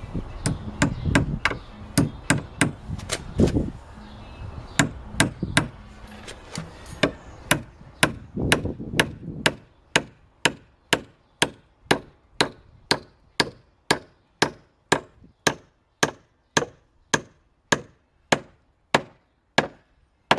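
Hammer blows on wood, driving nails in a stair repair: sharp strikes, uneven at first, then a steady run of about two a second that stops near the end. A low rumble under the first half drops away about ten seconds in.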